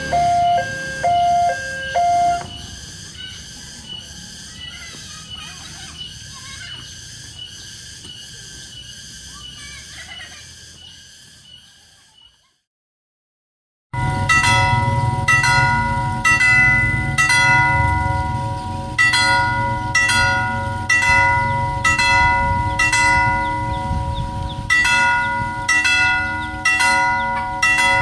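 Railway level-crossing warning alarm with its characteristic fast tempo. An alternating two-tone electronic alarm stops about two seconds in. After a short silent cut, an electronic crossing bell starts striking evenly, about one and a half strikes a second, each strike ringing on.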